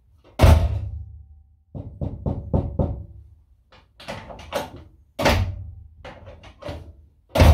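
Mk1 Cortina door being shut and worked by its handle: a dozen or so knocks and thuds in clusters, the loudest about half a second in. The panel has bitumen sound deadening behind the skin, which has killed its ringing 'bing' resonance.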